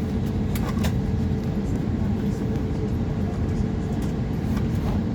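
Steady cabin rumble inside an Airbus A320neo with its engines running, carrying a steady low hum and a few faint clicks about a second in.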